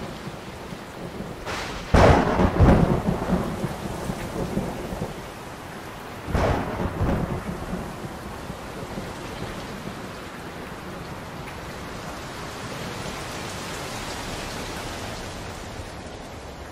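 Thunder rumbling twice, about four seconds apart, the first peal the louder, over steady rain.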